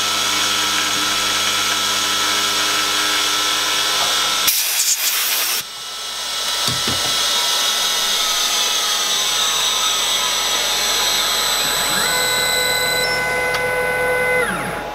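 CNC milling machine spindle running with an end mill cutting a profile in a metal plate: a steady machine whine. About four and a half seconds in there is a second-long burst of loud noise, and from about twelve seconds a higher set of whining tones ramps in, holds and ramps out just before the end.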